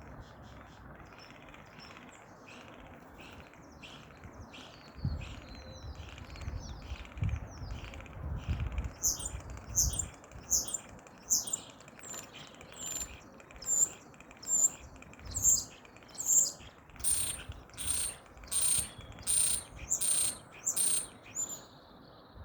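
Common starling calling in a series of short repeated notes, faint at first. From about nine seconds in, the calls turn louder and sharper, about one and a half a second, each carrying a high whistled tone.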